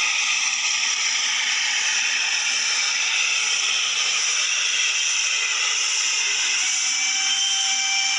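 Steam locomotive hissing steam in a steady, even rush as it passes close by; a faint steady tone joins near the end.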